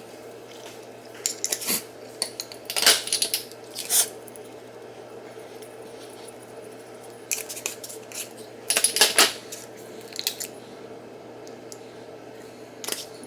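Hard household items clinking and clattering as they are handled and set down, in several short bursts of clicks over a steady low hum.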